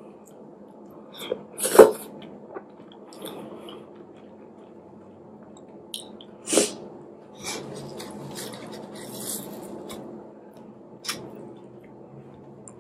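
Close-up eating sounds of fufu and slimy okra soup eaten by hand: a few sharp mouth smacks, the loudest about two seconds in and another about six and a half seconds in, with softer chewing between them and a click near the end.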